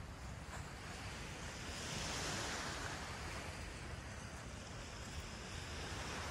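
Surf washing onto the shore, swelling once about two seconds in, over a low rumble of wind.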